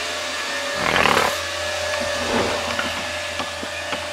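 Twin Vantec Tornado 12-volt computer fans running with a steady whir and a constant hum-like tone, with a brief louder sound about a second in.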